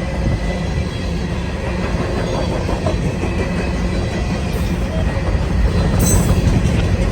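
Freight cars of a passing CSX manifold train rolling by, with the steady rumble of wheels on the rails and clacking over the rail joints.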